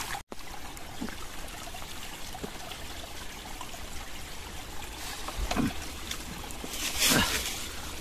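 Thin stream of water trickling steadily from a rock seep, with two brief soft sounds in the second half.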